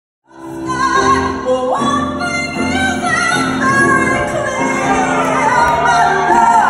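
A woman singing a song live with grand piano accompaniment; the music cuts in abruptly just after the start.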